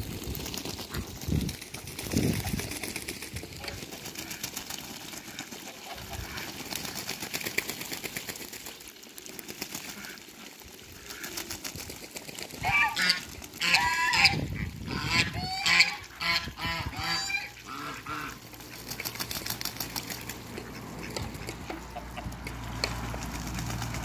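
Domestic geese honking in a loud run of calls for several seconds midway, amid ducks and geese splashing as they bathe in a shallow puddle.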